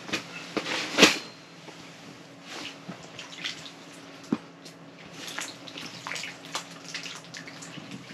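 Irregular small wet splashes, drips and taps from smelt fishing through the ice: water dripping off the lines and fresh-caught smelt on the wet ice, with one sharper splash about a second in. A faint steady hum runs underneath.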